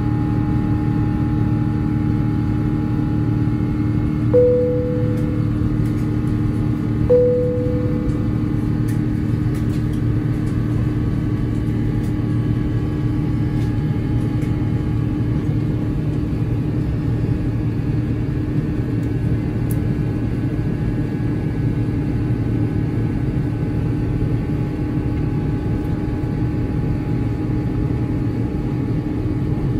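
Steady cabin drone of an Airbus A350-900 in its climb, engine and airflow noise heard from inside the cabin, with a few constant hum tones. Two single cabin chimes ring out about four seconds in and again about three seconds later, each a short tone that fades away.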